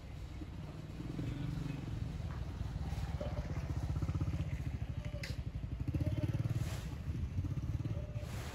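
A vehicle engine running with a low, pulsing rumble that swells twice, around the middle and again after six seconds, with one sharp tick about five seconds in.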